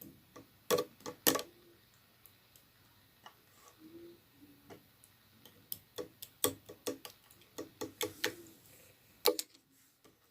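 Slime being pressed and worked by hand, giving irregular sharp clicks and pops, loudest about a second in and again around six to nine seconds, with a few short low squelch-like tones between them.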